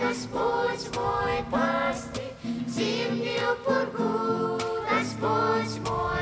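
Background music: a song with singing voices, the notes held and changing every half second or so.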